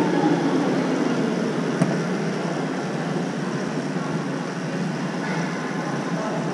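Electric go-kart on the move: its motor, its tyres on the concrete and the rush of air over a helmet-mounted microphone make a steady noise. One short sharp click comes about two seconds in.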